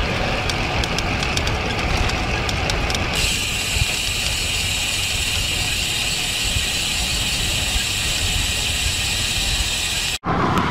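Wind and road noise on a bicycle-mounted camera while riding a road bike: a steady low rumble with light clicking at first. From about three seconds in, a steady high-pitched buzz joins it. The sound cuts out briefly near the end.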